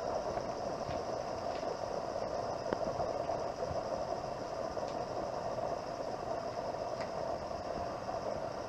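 Steady outdoor background noise: a continuous hum with a fainter high hiss above it and a few faint clicks, with no distinct event standing out.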